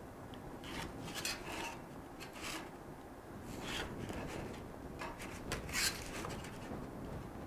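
Pencil drawing on thick card along a steel ruler: faint scratching in a series of short, separate strokes, marking the dotted fold lines of a cake box.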